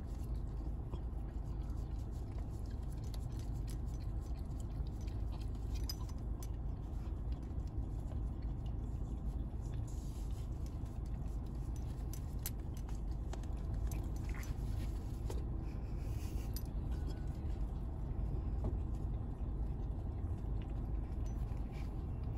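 Corgi puppy licking whipped cream from a paper cup: faint wet licks and small scrapes of the cup, over the steady low rumble of a car interior.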